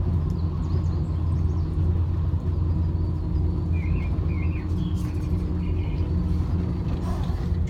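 Steady low rumble and hum inside a ropeway gondola cabin as it runs downhill. A bird chirps a few times a little past the middle.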